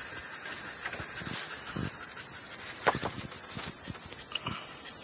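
Steady high-pitched drone of insects, with a few light clicks and knocks, the sharpest about three seconds in.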